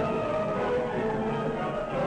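Orchestral background music with held notes.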